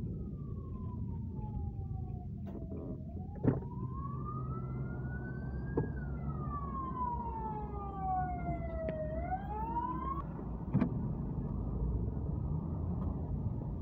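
A siren wailing slowly, its pitch falling and rising in long sweeps, heard from inside a car over the low hum of the car's engine; it stops about ten seconds in.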